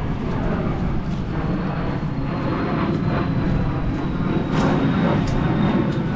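Fixed-wing airplane flying over near an airport: a steady engine drone with a faint high whine that slowly drops a little in pitch.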